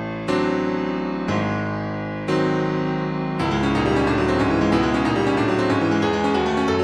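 Solo piano music: sustained chords struck about once a second, then a quicker, busier run of notes from a little past halfway.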